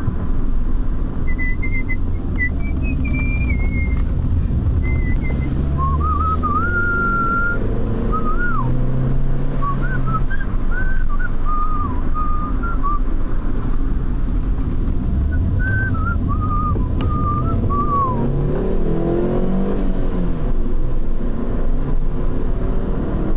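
Mini's engine and road noise heard from inside the car. A person whistles a wandering tune over it from about a second in until about 18 seconds in. Near the end the engine note rises and falls as the car accelerates out of a bend.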